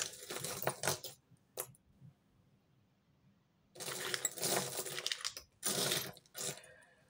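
Metal costume jewellery clinking and rattling as hands sift through a heap of it on a cloth-covered table, in short bursts of clicks with a pause of about two seconds in the middle.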